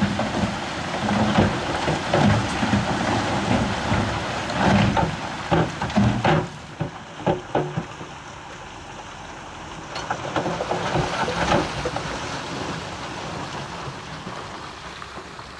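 Heavy earthmoving machinery running while stone clatters and knocks, as rock is pushed or tipped. The knocking is densest in the first six seconds, then the sound eases to a steadier, quieter rumble with a few more knocks.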